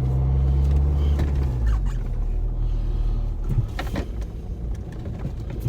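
Car running, heard from inside: a steady low engine hum that drops a little under two seconds in and settles into a quieter rumble, with a few light clicks around the middle.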